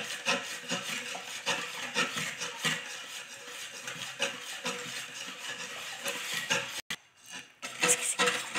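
A hand whisk stirring a creamy mixture in a stainless steel bowl, in repeated scraping strokes about two or three a second that make the bowl ring faintly. The sound breaks off for a moment about seven seconds in.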